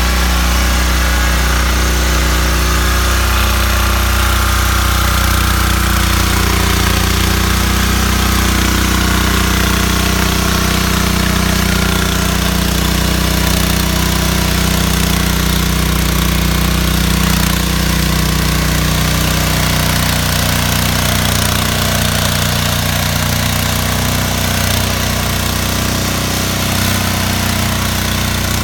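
Petrol walk-behind rotary tiller (motor hoe) engine running steadily at a constant speed.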